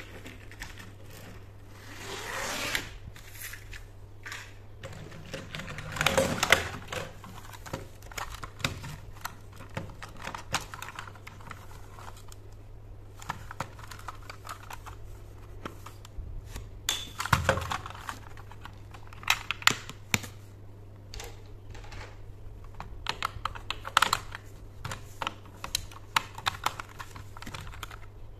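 Hard plastic clicks, taps and knocks as a red plastic toy engine is picked up, turned over and handled on a table, with a steady low hum underneath.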